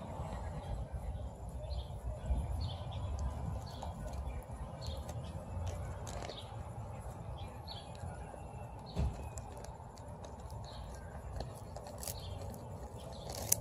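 A small dog chewing and gnawing a dried green lamb tripe stick, with a few sharp crunching clicks. A bird chirps briefly about once a second over a low, steady rumble.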